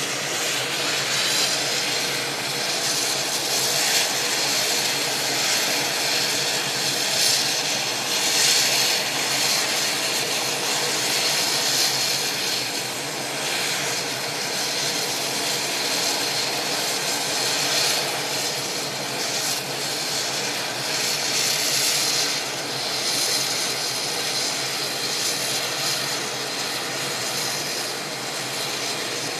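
UH-60 Black Hawk helicopter's twin GE T700 turboshaft engines running steadily with the helicopter on the ground: a constant turbine whine over a loud rushing noise.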